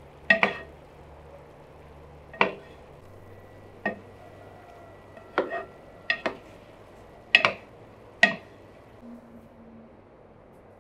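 Wooden spoon stirring green beans and vegetables in a metal frying pan, knocking sharply against the pan about nine times at uneven intervals, some knocks ringing briefly. A faint steady frying sizzle runs underneath.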